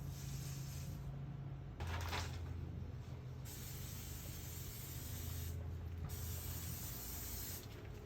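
Aerosol can of Spectracide Carpenter Bee and Ground Nesting Yellow Jacket Killer hissing as it is sprayed into a ground bee nest, in about three long bursts with short breaks. A steady low hum runs underneath.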